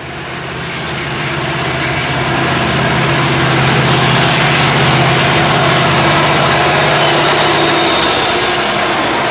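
Two Norfolk Southern SD70ACe diesel-electric locomotives, each with a 16-cylinder two-stroke EMD 710 engine, approaching and passing; their steady engine drone grows louder as they near. About eight seconds in the drone gives way to the rumbling rush of tank cars rolling past on the rails.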